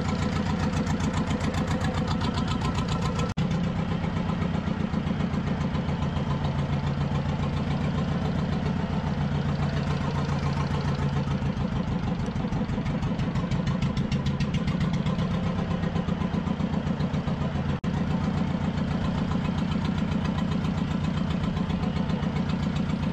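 Fishing boat's engine idling steadily with a fast, even pulse.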